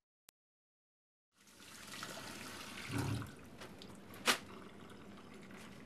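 Tap water running into a sink, starting after about a second and a half of silence, with a dull knock about halfway through and a sharp click a little over a second later.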